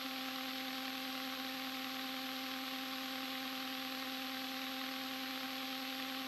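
Steady electrical hum with an even hiss on the light aircraft's intercom audio line, a few pure tones held unchanged.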